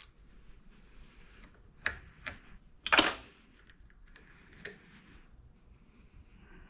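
Steel tools and gearbox parts clinking as a 17mm wrench works on the gear-stack shaft. There are about six sharp metallic clinks, the loudest about three seconds in with a short ring.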